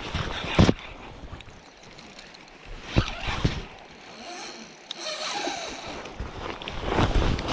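Jacket fabric rustling and rubbing against a chest-mounted camera, with a few sharp handling knocks about half a second in and again around three seconds in, and rougher rubbing near the end.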